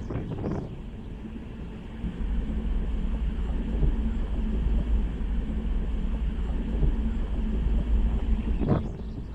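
Steady low rumble and hum of a large ferry's engines, with a noisy wash over it.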